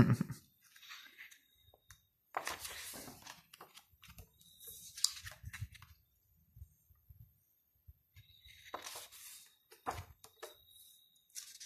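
Pages of a large hardcover photobook being turned by hand: paper rustling and swishing, with one turn about three seconds in and another near the end, and quiet handling between.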